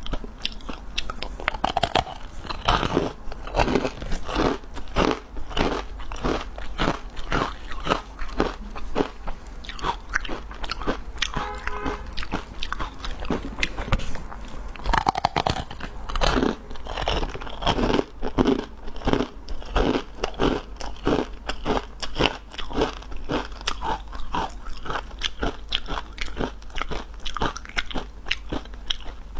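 Puffed corn crisp bar being bitten and chewed: a steady run of crisp crunches, bite after bite.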